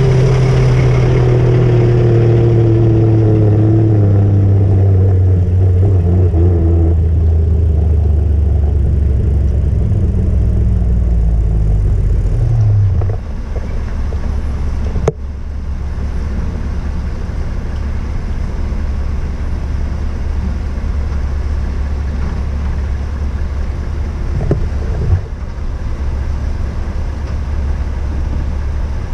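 Heavy diesel truck engine running close by, its pitch sliding slowly down for about thirteen seconds and then cutting off. A steady low engine drone follows, with a sharp click about fifteen seconds in.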